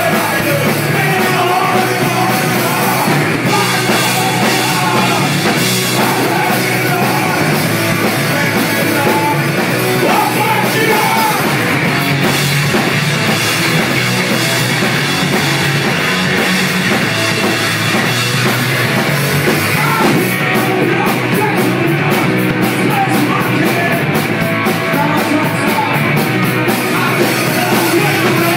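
Live punk rock band playing loud: distorted electric guitar, bass guitar and a drum kit, with a singer at the microphone. The drum strokes stand out more sharply in the last third.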